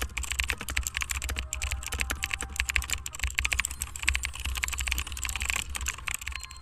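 Typing sound effect: a fast, unbroken run of keyboard key clicks over a low steady hum.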